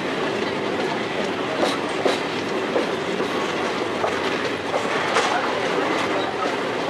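Train running steadily, heard from on board: a constant rumble with a few sharp, irregularly spaced clacks of the wheels over the rail joints.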